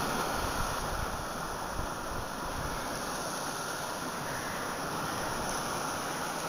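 Steady rushing of sea surf against the shore, with some low wind rumble in the first couple of seconds.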